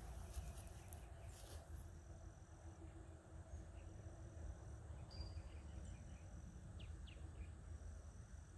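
Quiet rural field ambience: a high insect trill repeating about every second and a half, with two short chirps about seven seconds in. Underneath runs a low rumble of wind on the microphone, and there are a few faint clicks in the first two seconds.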